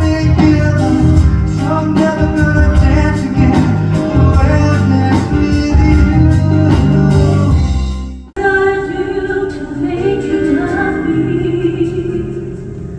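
Music with singing: a loud song with a heavy bass and steady beat cuts off suddenly about eight seconds in, and a softer song with singing follows.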